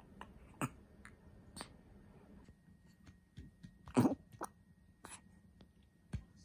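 A young baby, under three months old, burps once about four seconds in: a short, low burp, the loudest sound here. A few soft clicks come before and after it.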